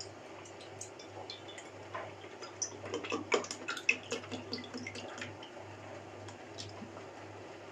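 Fruit juice pouring from a carton spout into stainless-steel mugs, a thin stream splashing into the liquid, with scattered sharp clicks and taps loudest around three to four seconds in.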